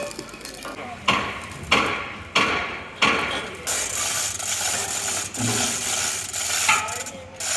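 Metalworking tool noise: four sharp scraping strokes about two-thirds of a second apart, then a steadier rasping mechanical noise.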